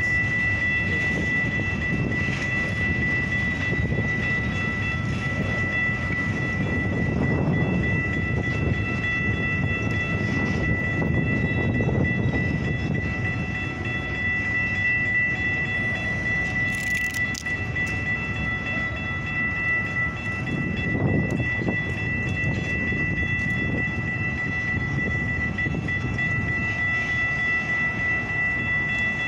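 Freight train cars rolling steadily past, with the low rumble and clatter of steel wheels on the rails. A steady high-pitched tone runs over it.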